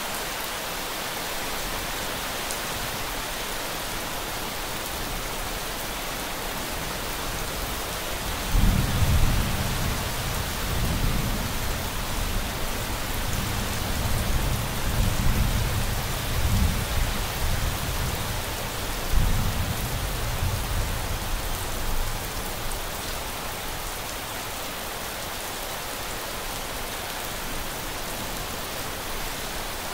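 Steady rain, with a long roll of thunder that breaks in suddenly about a third of the way through, swells and rumbles for some thirteen seconds with a second peak, then dies away under the rain.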